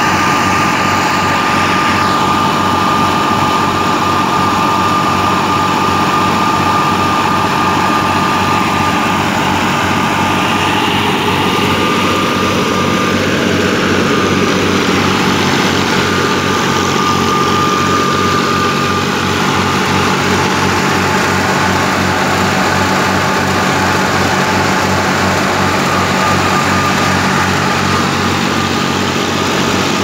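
Tractor engine running steadily, driving a wheat thresher, with a fast, even engine pulse and a thin high whine that comes and goes.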